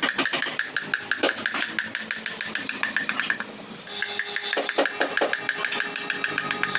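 Wood-carving gouge driven into a wooden door panel by rapid mallet taps: a fast, even run of sharp taps, easing off briefly about three seconds in and then resuming.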